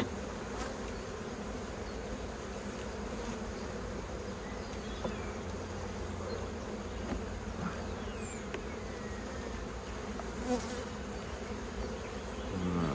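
Buckfast honeybee colony buzzing around an opened hive, a steady dense hum.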